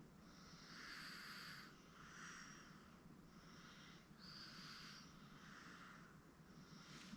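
Faint snoring breaths of a sleeping baby, a soft noisy breath about once a second, with a thin whistle on a couple of them.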